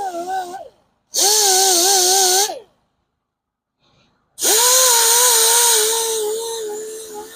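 Electric grinder with a grinding disc working curb rash off an alloy wheel rim: a wavering motor whine with a hiss of grinding. It stops and starts in short runs, and near the end spins back up with a rising whine and keeps running.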